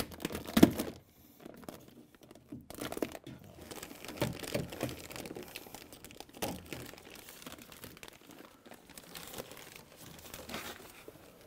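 Thin plastic vapor-barrier sheet being peeled off a car's inner door panel, crinkling and tearing loose from its sticky adhesive in irregular crackles. The loudest pull comes about half a second in, and the crinkling thins out toward the end.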